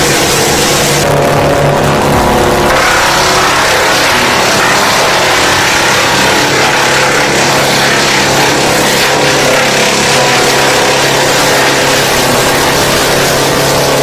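Vermeer BC1000 drum brush chipper running steadily while chipping green branches: a steady engine drone under a dense hiss of wood being chipped and chips blown out of the discharge chute.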